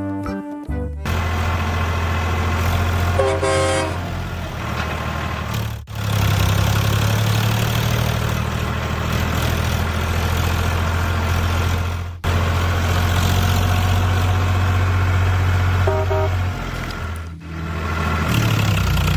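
A miniature construction vehicle's motor running steadily with a low hum, broken off sharply twice. A short horn toots about three and a half seconds in and again near sixteen seconds.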